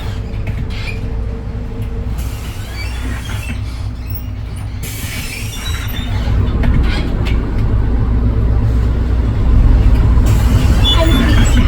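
Edison Motors Smart 110G low-floor city bus running, heard inside the cabin: the low rumble of its GX12P CNG engine and the road noise, with light rattles. It gets louder about halfway through and louder still near the end.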